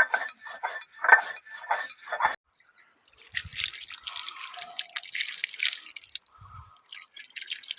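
A person talks for the first two seconds. From about three seconds in, water splashes and drips with an irregular hiss and small ticks.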